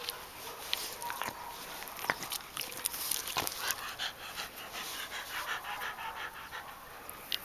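Clumber spaniel panting, quick even breaths, with a few short sharp clicks.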